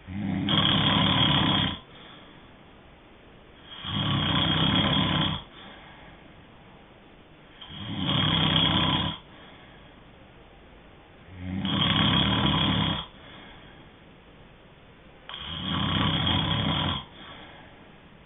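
Someone asleep snoring in a steady rhythm: five snores about four seconds apart, each lasting about a second and a half, with quiet between them.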